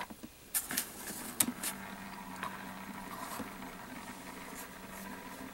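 A few light clicks and taps from carded die-cast toy cars being handled, bunched in the first couple of seconds, then a faint steady hum.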